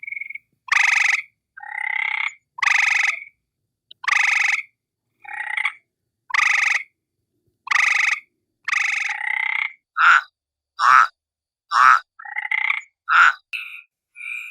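A series of separate frog croaks, each about half a second long with clean silence between them, coming about once a second. After about ten seconds the calls turn shorter and come faster.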